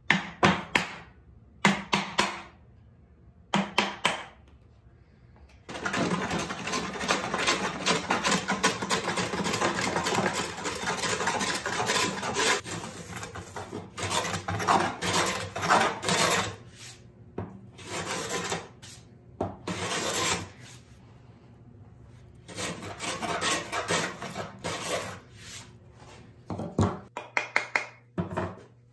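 Hand-tool work on a pine board: a wooden mallet striking a chisel in three short clusters of sharp blows. Then a long stretch of steady scraping cutting, followed by several shorter bouts of hand-plane strokes trimming the tenon. More mallet blows on the chisel near the end.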